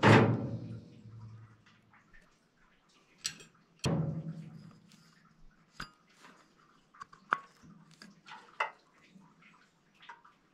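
Metal knocks and clicks of a small Fasco blower motor being taken apart by hand. There is a loud clank at the start and another about four seconds in, each ringing briefly, then lighter clicks as the end cap and rotor are worked free.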